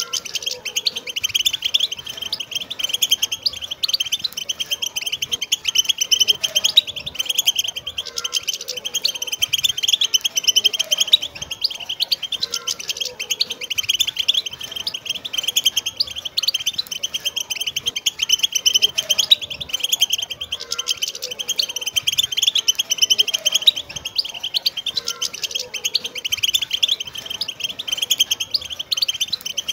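A group of wild European goldfinches singing together: dense, continuous twittering and chirping with no pauses.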